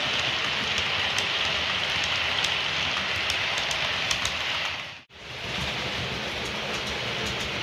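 Hornby OO-gauge HST model train running on the layout track: a steady rushing hiss of wheels and motor with scattered light clicks, plain mechanical running noise with no sound decoder fitted. It drops out for an instant about five seconds in, then carries on.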